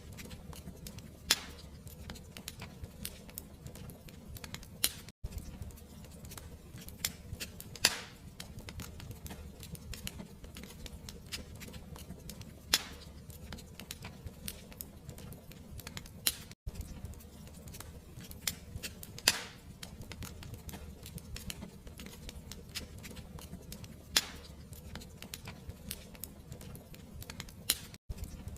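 Fireplace fire crackling: a steady low rumble under a constant patter of small crackles, with a sharper pop every few seconds. The sound cuts out for an instant three times.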